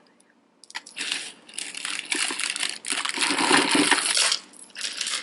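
Hands rummaging through a box of mixed costume jewelry: a dense rustling and crinkling that starts about half a second in, with a short pause near the end.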